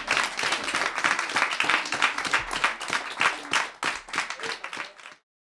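Audience applauding: dense clapping from many hands that thins out after about four seconds and cuts off suddenly near the end.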